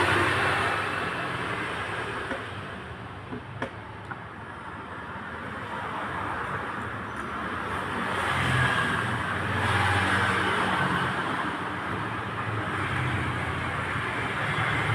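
Background road traffic noise that rises and falls, with a short sharp click about three and a half seconds in.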